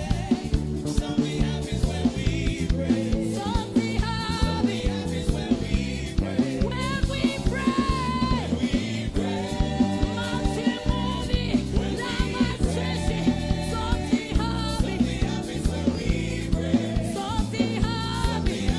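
Gospel praise and worship song performed live: a group of women singing together into microphones over a band with a steady drum beat.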